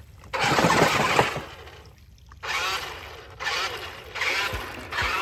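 Ruko 1601 amphibious RC truck driving through shallow creek water, its paddle-tread tires churning and splashing in bursts. The first burst, about a second long, is the loudest; three shorter, quieter spurts follow.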